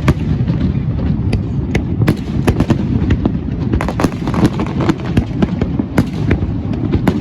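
Aerial fireworks going off in a dense barrage: many sharp cracks, several a second, over a continuous deep rumble of shell bursts.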